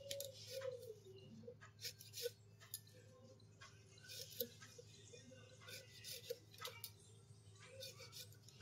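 A metal spoon stirring cubed pumpkin in a kadhai: faint, irregular clicks and scrapes of metal on the pan, several a second.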